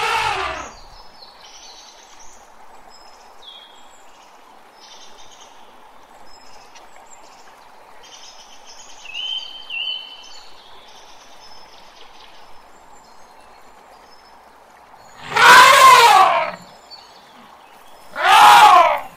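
African elephants trumpeting: a loud, wavering trumpet blast of about a second and a half near the end, then a shorter one just before the end, with another call tailing off at the very start. Between the calls there is a steady outdoor background with faint bird chirps.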